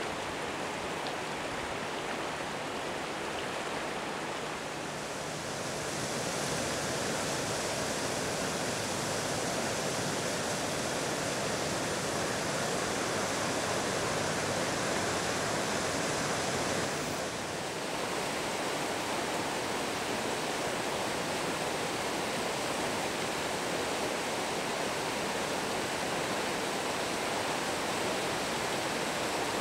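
Fast-flowing river water rushing over stones, a steady noise that gets louder about six seconds in and dips briefly a little past halfway.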